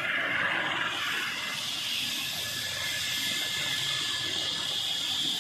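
Airbus H135 P3 helicopter's twin turboshaft engines running on the ground before lift-off: a steady turbine hiss and whine, with a thin high tone setting in about two seconds in.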